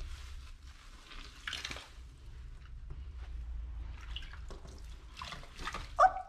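Bathwater splashing and dripping as a sponge is worked over a kitten in a small plastic tub of soapy water, with scattered small splashes and one brief louder sound near the end.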